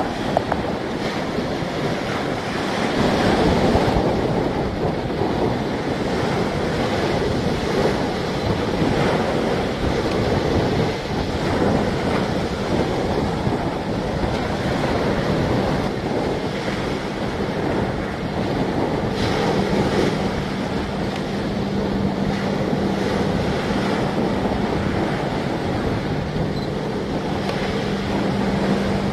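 Waves breaking and washing on a shingle beach, with wind buffeting the microphone. A steady low hum comes in a little past halfway.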